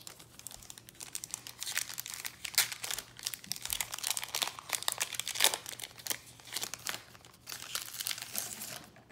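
Foil wrapper of a Panini Contenders basketball card pack crinkling and tearing as it is ripped open by hand: a dense run of sharp crackles that stops just before the end.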